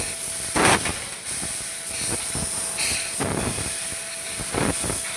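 CNC tube laser cutting machine running on square tube: a steady high hiss with a faint steady tone underneath, broken by short louder noisy bursts, the strongest about two-thirds of a second in.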